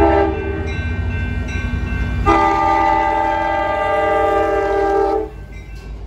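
Amtrak California passenger train's diesel locomotive horn sounding for a grade crossing: a short blast at the start, then a long chord held about three seconds that cuts off near the end, over the low rumble of the passing train.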